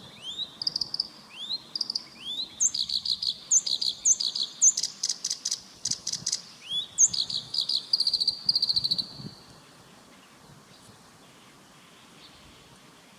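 Black-browed reed warbler singing a fast, varied song of rising whistled notes, repeated buzzy phrases and rapid dry chatter, which stops about nine seconds in.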